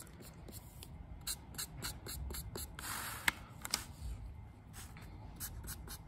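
Black marker flicking quick, short strokes across paper, several strokes a second, sketching feather lines.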